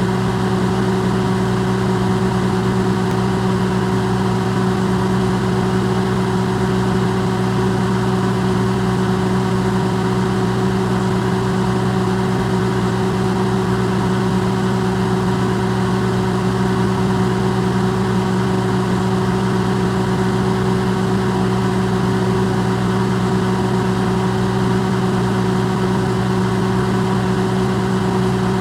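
Electrolux microwave oven running: a steady low hum with an even whir over it, amplified.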